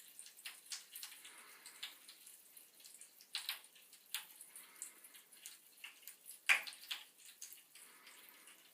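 Bath crackles fizzing and popping in bath water: a string of irregular sharp little crackles and pops, the loudest about six and a half seconds in.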